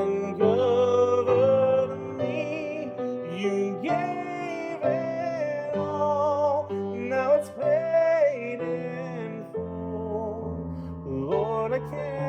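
Slow worship song: long, wavering sung notes over sustained keyboard chords.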